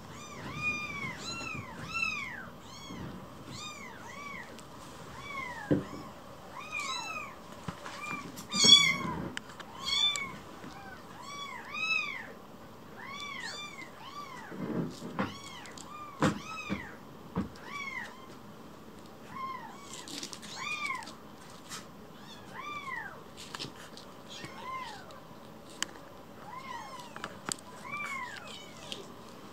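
Very young kittens mewing over and over: thin, high mews that rise and fall, about one a second. The loudest and harsher cry comes about a third of the way through, with a few soft knocks scattered among the mews.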